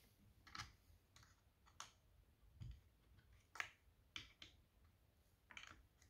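Faint, irregular clicks and light knocks, about eight in all, one of them a duller thump, from handling a soldering station's handpiece and cable against the station and its stand.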